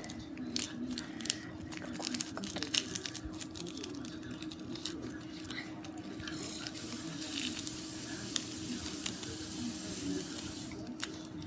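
Seasoning being shaken and sprinkled onto edible paper: light pattering and crackling, denser from about six seconds in, over a steady low hum.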